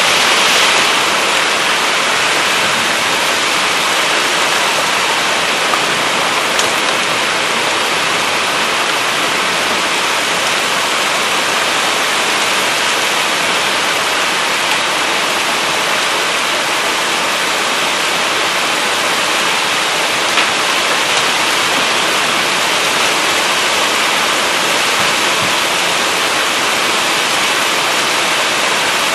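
Heavy rain pouring down in a loud, steady rush, driven by gusty wind.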